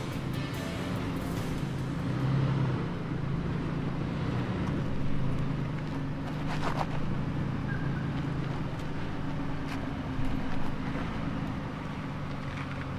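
Toyota 4Runner engine running at low, steady revs as the SUV crawls slowly over trail rocks, giving a constant low hum. There is a brief sharp clatter about seven seconds in.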